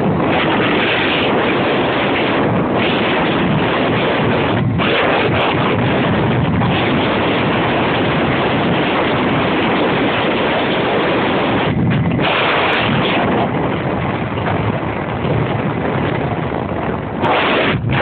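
Heavy wind noise buffeting the microphone over a Peugeot Jet Force scooter's tuned two-stroke Malossi Sport 70cc engine running at speed, with a couple of brief lulls in the wind.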